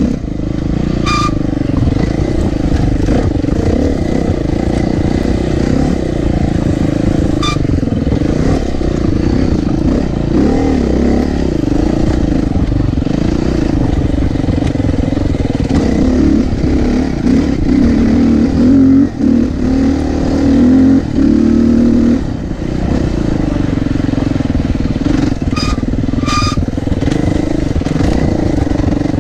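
Dirt bike engine running under varying throttle over a rough trail, its pitch wavering up and down and louder for several seconds past the middle. A few sharp clicks.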